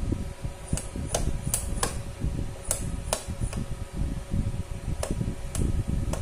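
Moving-head beam light running, its cooling fan giving a steady low whir with a faint hum, while sharp mechanical clicks, about a dozen at uneven intervals, come from inside the head as it responds to commands from the DMX lighting mixer.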